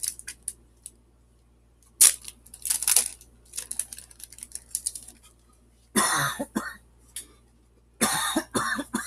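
Foil Pokémon booster-pack wrapper being torn open and crinkled, with fine rustling and clicking and a sharp tear about two seconds in. Two short coughs about six and eight seconds in.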